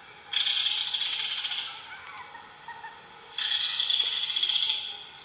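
Recorded tropical birds chirping and twittering, played twice from a children's sound book's small electronic speaker, with a thin, tinny tone.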